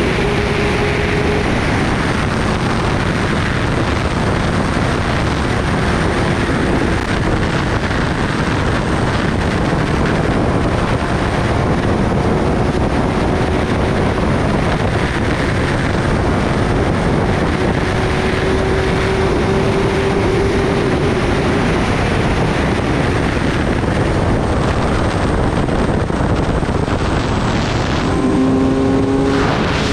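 Heavy wind rush over the microphone at highway speed on a Kawasaki Ninja ZX-10R, with the bike's inline-four engine droning steadily underneath. Near the end the engine note rises.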